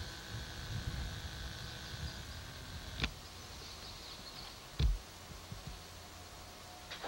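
Outdoor background noise with low rumbling that fades after the first couple of seconds, and a faint steady high tone that stops about three seconds in. A few sharp knocks sound, the loudest a low thump nearly five seconds in.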